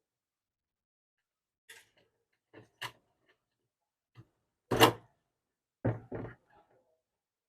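Scattered clicks and knocks of the burner's parts and tools being handled during wiring work: about seven short separate knocks, the loudest one a little past halfway, followed by two close together.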